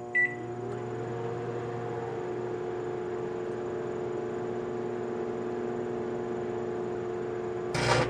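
A GE microwave oven beeps once as it starts, then runs with a steady electrical hum. Just before the end comes one short, loud burst of arcing from the folded aluminum foil inside.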